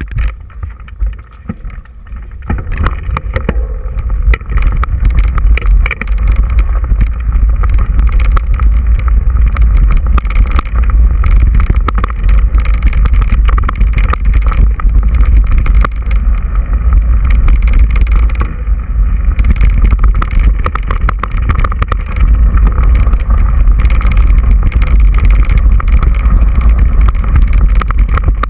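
Wind rumbling over a GoPro's microphone on a mountain bike riding a rough dirt and gravel track, with crunching and rattling from the tyres and bike over stones. It grows louder about three seconds in.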